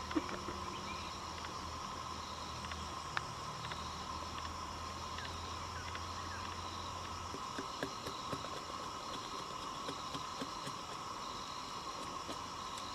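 Steady insect chorus over a low, distant machine drone from a palm oil mill; the drone cuts off about seven seconds in. Scattered faint clicks and snaps.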